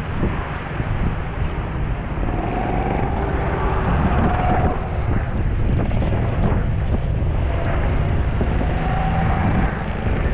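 Go-kart engines running on the track, their note swelling twice, under a steady low rumble of wind on the microphone.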